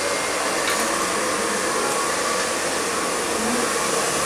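Steady rushing noise of an electric blower running without a break.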